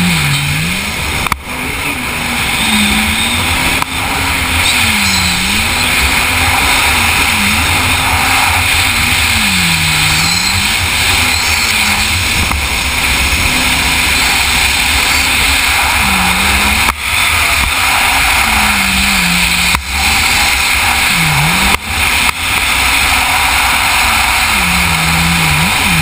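Yamaha FZR personal watercraft's engine running hard at racing speed, its pitch dipping and climbing back about eight times as the throttle is eased and reopened around the course buoys. A steady rush of wind and water noise lies under it throughout, broken by a few brief sharp drops in loudness.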